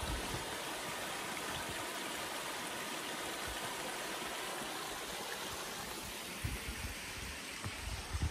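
Small stream running over a shallow stepped rock cascade: a steady, even rush of water. A few low thumps come in near the end.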